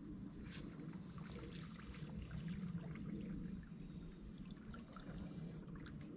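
Faint water at the shoreline: gentle lapping and trickling against the rocks, with small irregular splashes.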